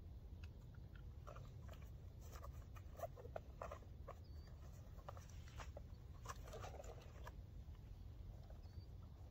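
Quiet outdoor background: faint scattered rustles and ticks over a low steady rumble, with a few faint short high chirps.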